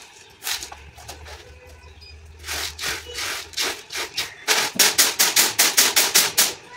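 Wheat grains rattling on a woven bamboo winnowing tray. A few scattered rustles as the grain is handled, then, in the second half, a quick even run of shakes, about six a second, as the tray is tossed to winnow the grain.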